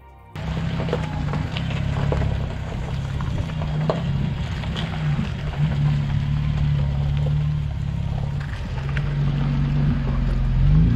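A motor running, its low hum made of several tones whose pitch drifts up and down, under a steady rushing noise with a few light ticks.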